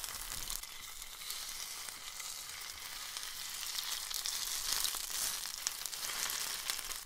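Egg sizzling in hot oil in a nonstick frying pan while a wooden spatula stirs and breaks it up.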